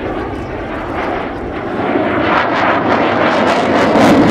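F-15DJ fighter's twin turbofan jets in afterburner during a hard turn overhead: a loud jet engine noise that swells, with crackling growing from about two seconds in.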